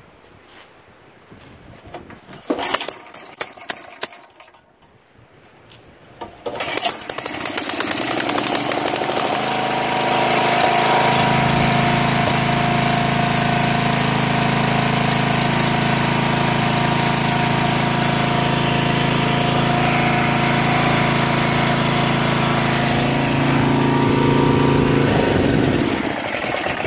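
Tecumseh engine on a mid-1980s Snapper 25066 rear-engine riding mower, with a freshly rebuilt carburetor, being started. It turns over briefly a few seconds in and catches about six seconds in. It revs up a few seconds later, runs steadily and evenly, then is shut off near the end, its pitch falling as it dies.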